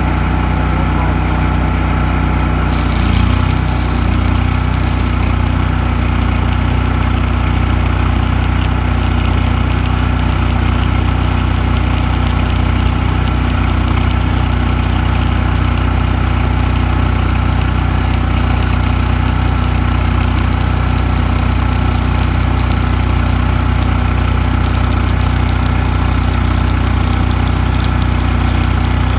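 Engine-driven welding machine running steadily. About three seconds in, a 7018 stick electrode's arc is struck and a steady crackling hiss runs on as the rod is welded uphill, while the engine note shifts as it takes the load.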